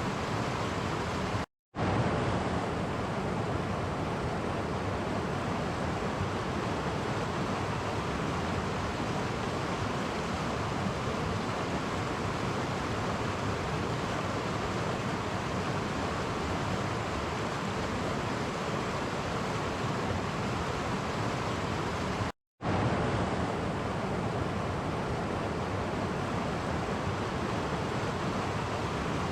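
Clear stream running over small cascades: a steady, even rushing of water, cut by a brief gap of total silence twice, just after the start and about three-quarters of the way through.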